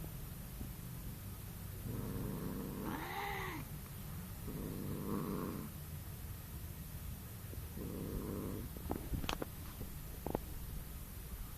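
Persian cat purring in three low rumbling spells about a second long each, with a short rising-and-falling low call about three seconds in. Two sharp clicks come later.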